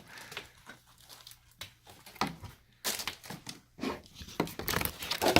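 Plastic toy packaging crinkling and rustling in irregular crackles as toys from the mystery egg are handled and unwrapped, louder from about two seconds in.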